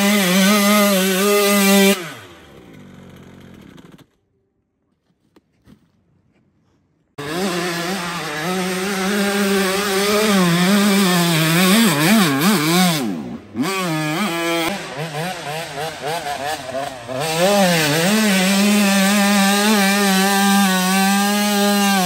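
Motocross bike engine revving hard at high revs. It drops away about two seconds in and goes almost silent for a few seconds, then comes back with the revs rising and falling quickly before being held high near the end.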